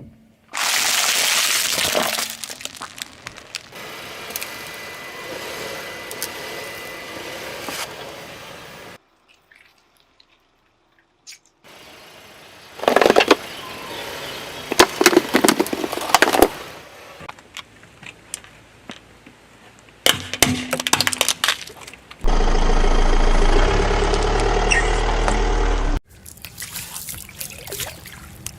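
Crunching, cracking and squelching of objects crushed under a car's tyre, in several short clips cut together. There is a gap of near silence about nine seconds in, and a steadier noisy stretch with a low hum from about 22 to 26 seconds.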